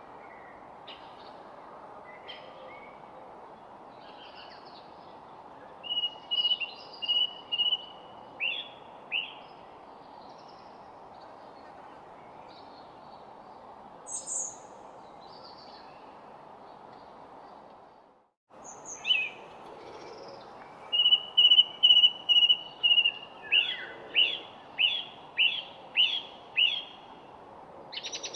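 Wild songbirds singing over a steady background hiss. A bird repeats a phrase of short clear notes that ends in a run of quick downward-sweeping notes, louder and longer in the second half. All sound cuts out for a split second a little past the middle.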